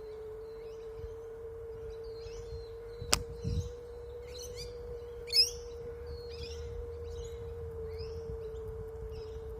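Mockingbird giving a run of short, varied chirps, one every half second or so, the loudest a little past five seconds in, over a steady electric-scooter motor whine. A sharp click about three seconds in.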